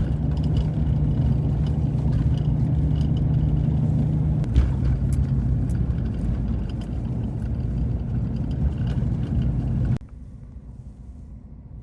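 Car driving: a steady low engine and road rumble with a low hum, which cuts to a much quieter background about ten seconds in.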